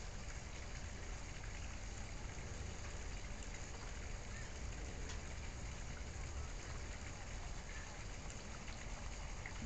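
Steady hiss with a low rumble underneath and a few faint ticks.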